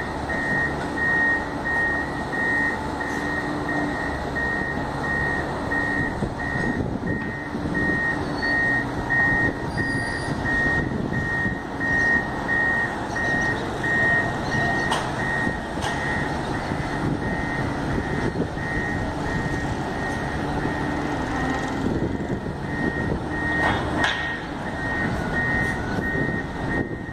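Reversing alarm on heavy construction machinery beeping steadily, about two beeps a second, over the machine's engine running.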